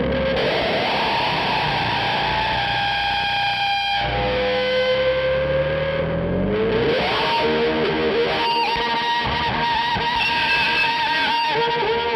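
Charvel DK24 electric guitar through overdrive and fuzz pedals into a hand-built 1968 Marshall amp with two 12-inch Creamback speakers, playing a distorted lead of long sustained notes with bends and slides. From about halfway a high note is held with a shaking vibrato.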